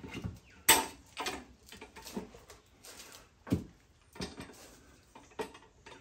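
Irregular knocks and clunks from a manual tire changer and wheel as the bead breaker is worked against a tire bead that has not yet broken all the way round, the sharpest about a second in.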